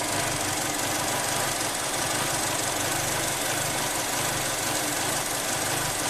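A 2012 Chevy Cruze's 1.4-litre turbo four-cylinder idling steadily, with an uneven low pulsing. It is running lean with too much vacuum in the crankcase, which the mechanic puts down to a leaking PCV breather in the camshaft cover.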